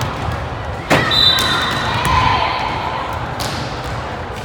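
Volleyball struck hard about a second in, echoing in a gymnasium, followed at once by a short high tone and a raised voice. A second, lighter ball contact comes about three and a half seconds in, over steady gym crowd noise.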